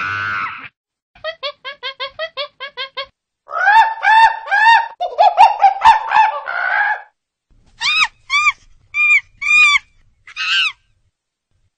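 A bird calling: first a quick run of about ten short notes, then a louder stretch of calls, then five separate calls near the end.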